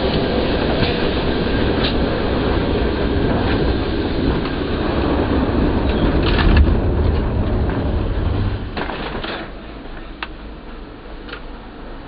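Historic Lisbon tram running on its rails, heard from the front platform: a steady low rumble of wheels on track with scattered clicks and knocks. The rumble drops away about nine seconds in, leaving a quieter run with a few sharp clicks.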